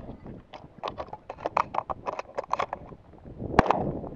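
Shotgun shells pushed quickly into a pump-action shotgun's magazine tube, making a fast run of clicks and clacks. About three and a half seconds in, a single loud shotgun shot ends the timed reload.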